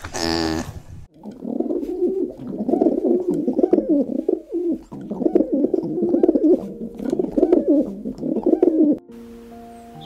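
European turtle doves purring, a low rolling coo repeated over about eight seconds. It is preceded by a short call about a second long from an alpaca. Music with held notes comes in near the end.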